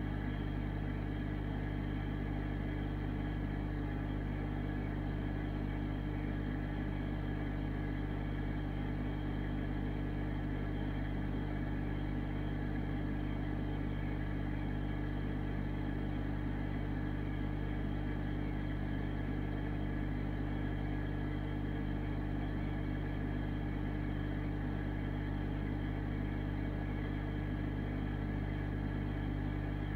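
Aquarium pump running: a steady, unchanging mechanical hum.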